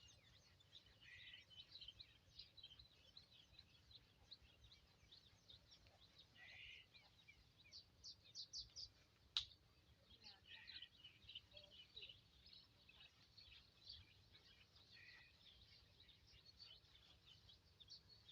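Small birds chirping and twittering faintly in many short, high calls, with a single sharp click about nine seconds in.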